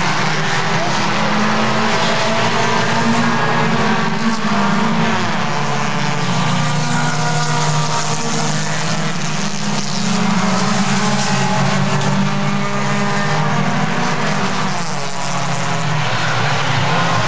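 A pack of Bumblebee-class compact stock cars racing on a short oval, several engines running hard together, their pitch rising and falling as the cars pass and lift through the turns.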